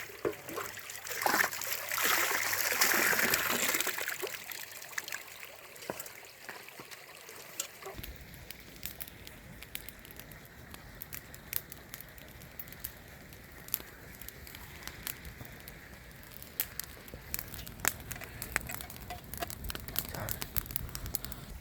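Water sloshing and splashing for a few seconds, then a steady background with scattered sharp crackles and clicks.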